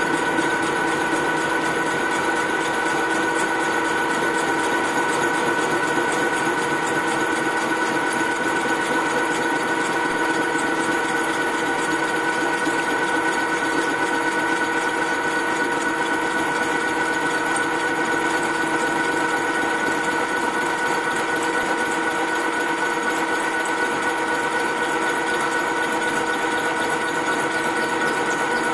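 Milling machine cutting hardened material: a steady, unchanging whine of several pitches over a constant grinding noise.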